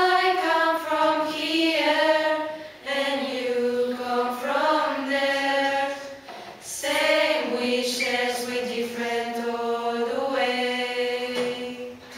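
A choir of young voices singing a slow melody in long held notes, phrase by phrase, with short breaks between phrases about three and six and a half seconds in.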